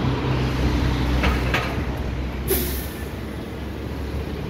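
Road traffic with a large diesel vehicle running close by, a low steady drone for the first couple of seconds. There is a brief squeal a little over a second in and a short sharp hiss of air about halfway through.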